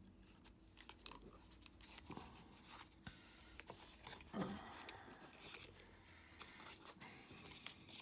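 Faint small clicks and scraping of a tension wrench and lock pick working in the keyway of a Master Lock Excell disc padlock, with light crinkling of its packaging as it is held. A brief low voice sound comes about four seconds in.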